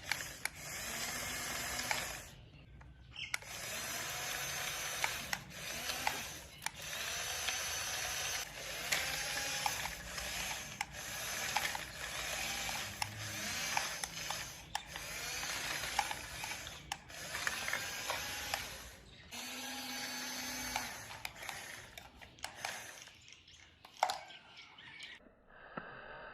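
Small electric gear motors of a homemade mini excavator whirring in short bursts, switched on and off over and over, each start rising briefly in pitch; a few faint clicks near the end.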